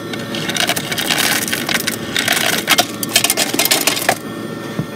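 Water pouring from a soda-fountain nozzle into a paper cup full of ice, with ice cubes clinking now and then. The flow cuts off about four seconds in.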